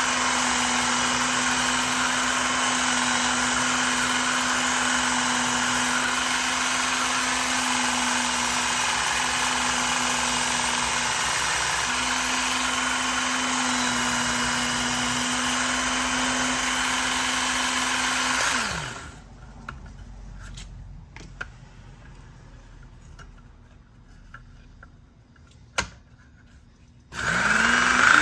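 Work Sharp belt knife sharpener with the Ken Onion blade grinding attachment running steadily, its motor hum under a broad belt hiss. About two-thirds through it is switched off and the motor winds down in pitch; a few light clicks and taps follow, then it starts again near the end, the pitch rising as it spins up.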